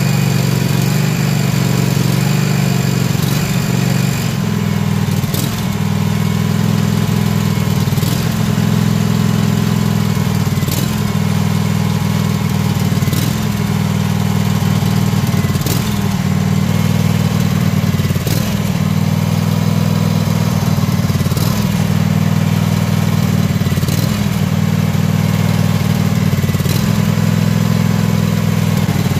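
Kawasaki FH480V 14 hp air-cooled V-twin lawn mower engine idling with a slight wavering in pitch. A sharp tick comes about every two to three seconds. The idle is uneven, which the owner puts down to spark plugs fouled with oil and carbon that are due for cleaning.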